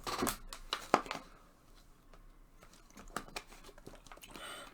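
Light handling noises: a few short rustles and clicks, bunched in the first second and again around three seconds in, quieter in between.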